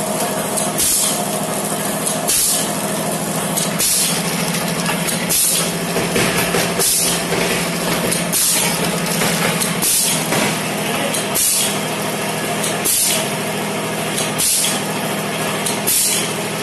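Automatic masala powder pouch packing machine running: a steady motor hum with a short burst of air hiss and a click about every one and a half seconds, once per pouch fill-and-seal cycle.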